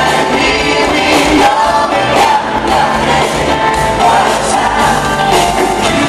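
Live pop band playing a song over a PA, with a lead singer, backing vocals, electric guitars and drums, heard from among the audience.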